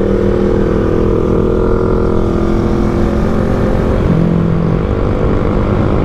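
Yamaha Mio Fazzio's 125cc single-overhead-cam engine at full throttle as the scooter accelerates toward its top speed, a steady high-revving drone that holds its pitch while speed rises. Heavy wind rumble on the mic underneath.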